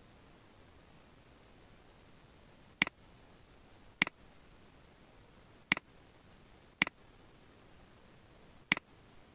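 Five sharp clicks of a computer mouse button, spaced irregularly one to two seconds apart, over a faint steady hiss.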